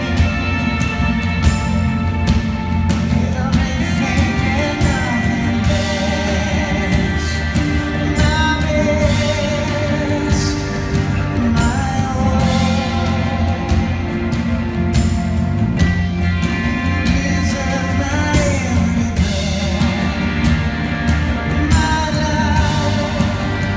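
Live worship band playing a slow worship song, with sung vocals over guitars and drums.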